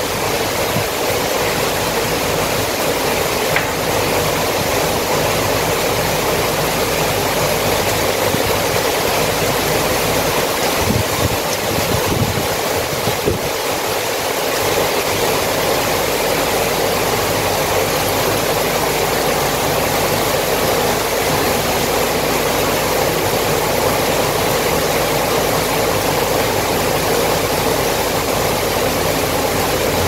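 Heavy rain falling steadily: an even, unbroken rush of water.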